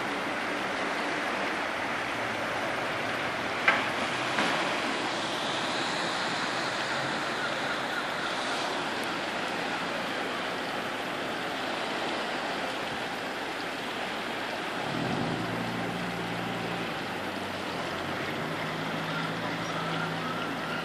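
Steady hiss of heavy rain and wind over harbour water, with two sharp knocks about four seconds in. From about three-quarters of the way through, a low engine hum comes in, the Atlantic 75 lifeboat's outboard engines running slowly.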